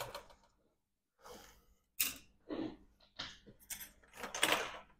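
A run of light clicks, knocks and short scrapes from laptop parts and tools being handled on a workbench. The longest and loudest scrape comes about four seconds in.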